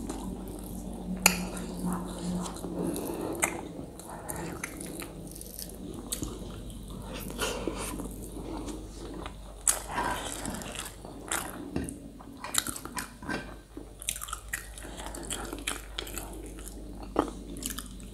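Close-miked chewing and mouth sounds of a person eating rice and pork by hand, with sharp wet clicks now and then.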